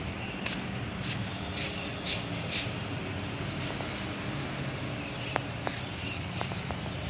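Footsteps on a hard floor, about two a second during the first two and a half seconds and then sparser, over a steady low hum.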